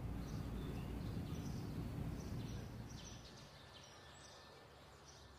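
Faint low background rumble that fades after about three seconds, with a few faint bird chirps partway through.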